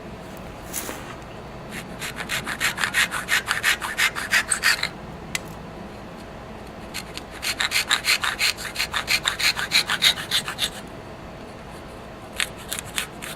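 Dovetail saw cutting into a small piece of wood with quick back-and-forth strokes, in two runs with a pause between, then a few short strokes near the end.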